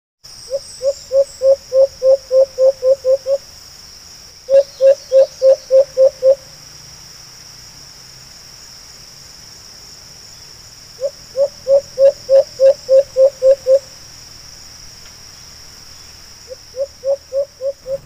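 White-eared brown dove calling: four runs of evenly paced low hoots, about three a second, each run of roughly six to eleven notes. A steady high-pitched insect drone runs underneath.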